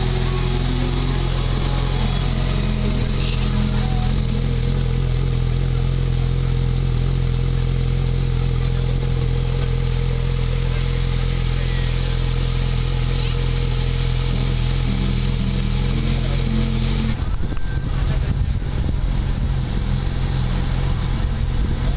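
Sport motorcycle engine idling steadily with an even low drone. About seventeen seconds in, the sound changes to a rougher, more uneven engine sound.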